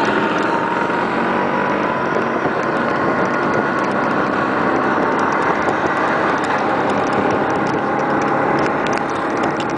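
Vespa scooter engine running steadily while riding in traffic. Its pitch drifts slightly over a constant road and wind noise.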